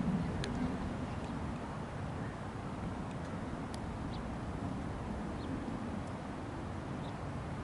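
Outdoor background noise: a steady low rumble with a few faint short ticks.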